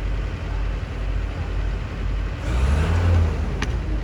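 A heavy engine running with a low rumble that swells for about a second midway, with a sharp click near the end.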